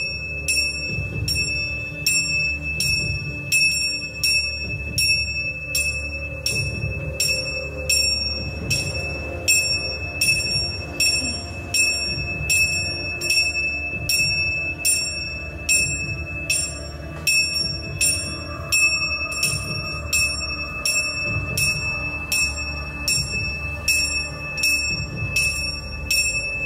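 A small metal bell struck in a steady rhythm, about two strikes a second, each ringing briefly, over a low, uneven thudding.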